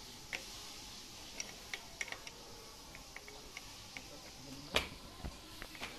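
Scattered light clicks and taps of a steel open-end spanner being fitted against a motorcycle mirror's mount nut and the handlebar fittings, with one louder knock just before five seconds.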